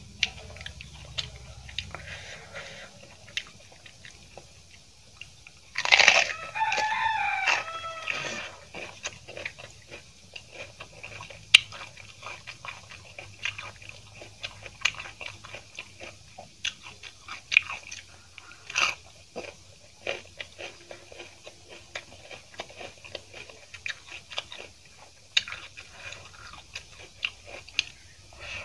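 Close-up eating sounds: chewing, biting and crunching of mouthfuls of rice and fish paste eaten by hand, with many small wet clicks. About six seconds in, a loud call with wavering pitch lasts about two seconds over the eating.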